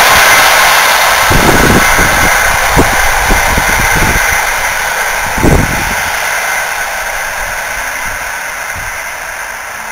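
Passenger train hauled by an EU07 electric locomotive running away down the line: a steady hiss of rolling noise that fades as the train recedes, with a few low thumps in the first half.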